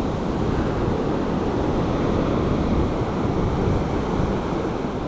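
Sea surf breaking and washing up and back over a sand beach in heavy backwash, with wind on the microphone.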